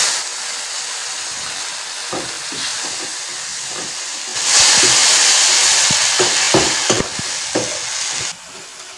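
Onion paste sizzling and frying in hot oil in a metal kadai, with a steel spoon scraping and knocking against the pan as it is stirred. The sizzle grows louder about halfway through and drops off sharply near the end.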